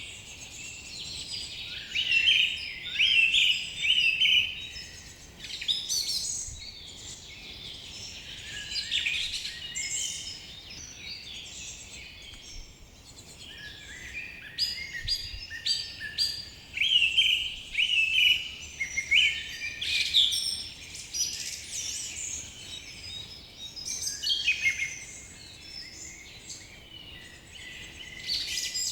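Forest birds singing and calling over one another: a dense chorus of short high chirps and trills that comes in clusters, over a faint background hiss.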